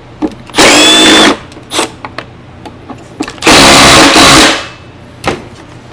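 Cordless power driver running in two short bursts, the second about a second long and winding down at the end, as it loosens the motor mount screws of a backpack blower engine. A few light knocks come between the bursts.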